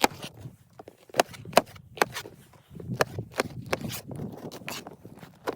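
Irregular sharp knocks and clicks, several a second at times, with a low rustling scrape joining in about halfway through.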